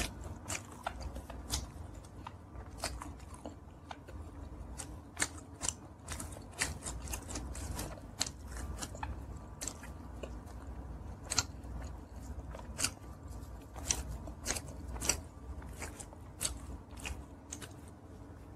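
Close-miked chewing of a mouthful of pizza: irregular crisp crunches and wet mouth clicks, several a second, over a low steady rumble.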